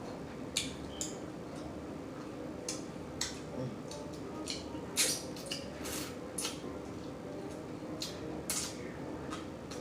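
Eating blue crabs up close: irregular sharp clicks and cracks of shell being broken and picked, mixed with mouth smacking, the loudest crack about five seconds in.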